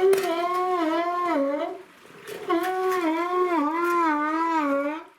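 An animal calling: two long, wavering calls, each about two seconds, with a short break between them.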